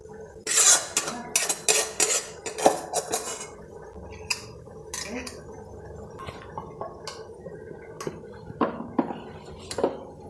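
A metal spatula scraping and knocking against a metal kadai as fried onions are scooped out of it. There is a dense run of scrapes and clanks in the first few seconds, then scattered clinks.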